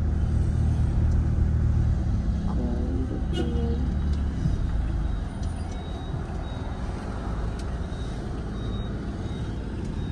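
Car moving slowly, heard from inside the cabin: a low engine and road rumble that eases off about four and a half seconds in, with street traffic outside.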